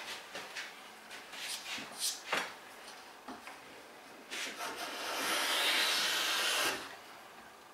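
A few light clicks and knocks, then one stroke of a Quangsheng No.62 low angle jack plane along a wooden board: a steady hiss lasting about a second and a half, cutting off sharply near the end. The iron is freshly honed and is taking a thin, full-width shaving.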